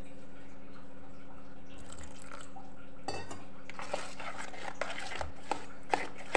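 Thick batter being mixed by hand in a stainless steel bowl, with sharp clinks and taps against the metal from about three seconds in, coming more often near the end. A steady low hum runs underneath.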